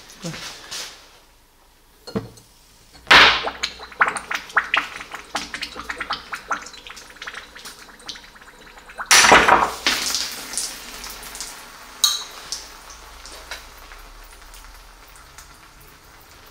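Red-hot metal ball sizzling and crackling in a glass of motor oil, the oil boiling violently around it, with two loud spitting bursts about three and nine seconds in and a sharp pop near twelve seconds, then dying down to a hiss.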